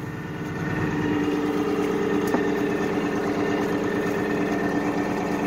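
Farm machine's engine running steadily in the cab, with a steady whine over it; it builds slightly in the first second, then holds even.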